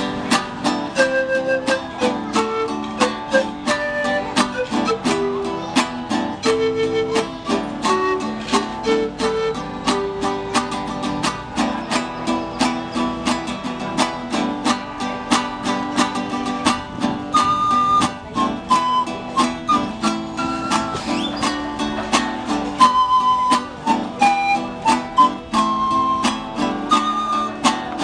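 Acoustic music on plucked string instruments, guitar-like, strummed and picked in a steady rhythm, with a melody of held notes moving above it.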